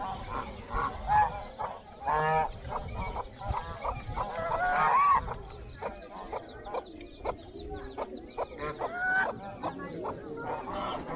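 A flock of birds calling, many short honking calls overlapping one after another, with a quick run of small, higher chirps in the middle.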